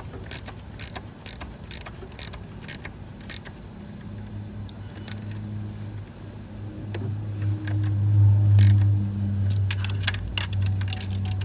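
Ratchet wrench clicking in short runs, a few clicks a second, as the bolt of a makeshift seal-installer tool is turned. A low hum comes up about four seconds in and is loudest around eight seconds.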